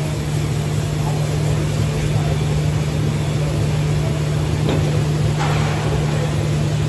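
Steady machine hum with a constant low drone, from equipment running in a welding booth. A brief click just before the 5-second mark, then a short faint scrape.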